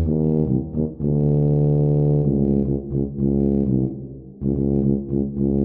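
Tuba playing a swung melody in separate low notes, with a short rest about four seconds in.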